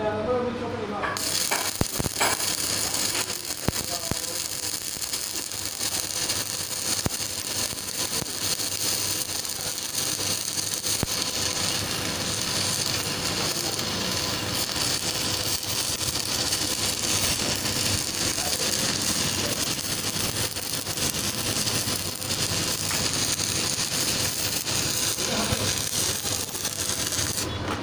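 Stick (shielded metal arc) welding on a steel excavator bucket. The arc strikes about a second in and crackles and sizzles steadily as weld beads are run, stopping near the end.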